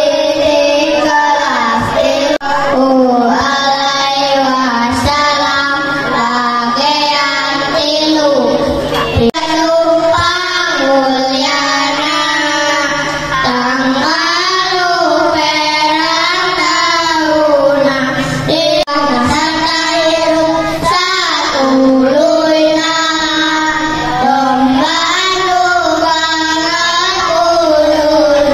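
A small group of children, boys and a girl, singing a song together through handheld microphones.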